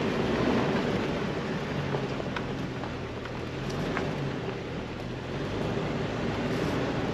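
Jeep Wrangler TJ's engine running low and steady as it crawls along a rocky trail, with a few sharp clicks and knocks from the tyres on stones and the body.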